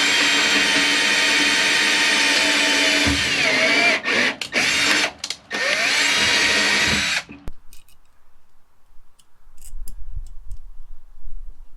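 Power drill motor running at full speed, dropping in pitch briefly a little after three seconds, stopping and restarting twice around four and five seconds in, then stopping about seven seconds in.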